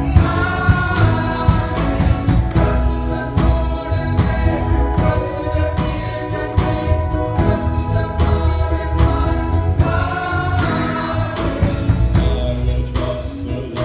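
A gospel choir sings in full voice over a steady beat and a heavy bass line.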